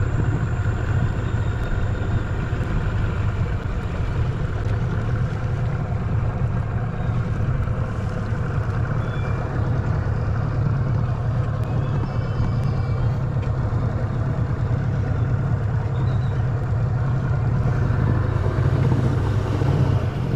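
Outboard motor of a small skiff running steadily, a constant low hum, as the boat moves across the river.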